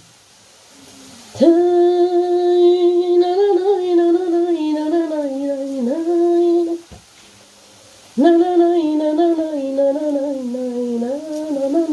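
A woman humming a slow melody in long held notes, in two phrases with a short break about seven seconds in.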